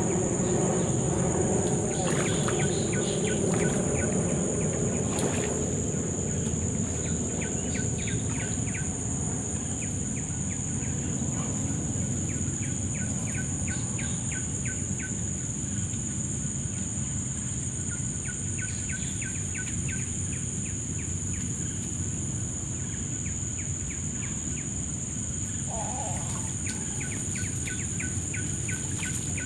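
Steady high-pitched insect drone, with a bird calling in fast runs of short repeated notes. Underneath is a low rumble, and a low hum fades out over the first few seconds.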